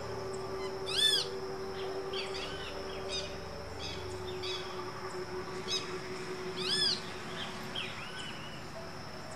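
Great kiskadee calls: two loud, arched, harsh calls, one about a second in and one near the end, with softer short calls in between.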